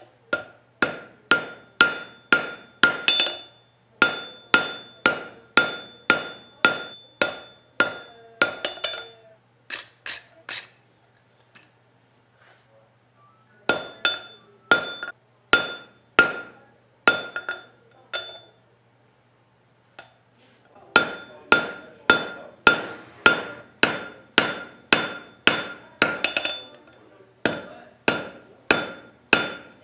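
Hand hammer forging a glowing wrought-iron san mai knife billet on an anvil, about two blows a second, each blow with a ringing tone. The blows come in three runs, with pauses about a third of the way in and again just past the middle.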